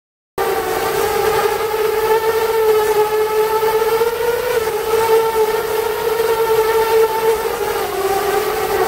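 Armattan Badger 5-inch FPV quadcopter in flight, its brushless motors and propellers giving a loud, steady buzzing whine that holds nearly one pitch with small wavers, over a rushing hiss. It starts abruptly about half a second in.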